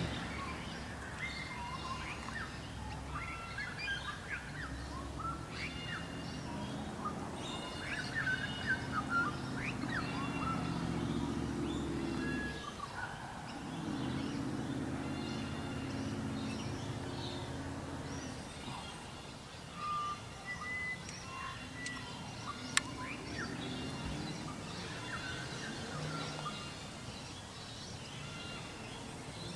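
Background birds chirping and calling in many short notes, over a low steady hum that drops away twice. A single sharp click comes about two-thirds of the way through.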